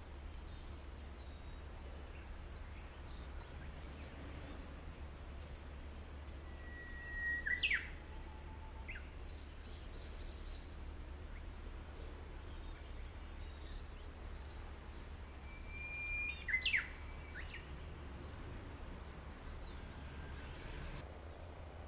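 A bird calls twice, about nine seconds apart: each call a short whistled note followed by a couple of sharp, quick notes. Between the calls there is only a steady background hiss with a faint high steady tone.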